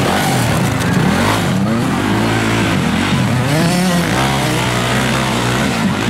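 Dirt bike engines revving up and down over and over, a Yamaha YZ close by among them, their pitches rising and falling and overlapping.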